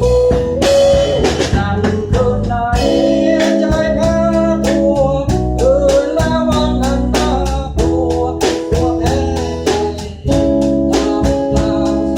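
A band playing a song: guitar and organ holding chords over a drum kit keeping a steady beat.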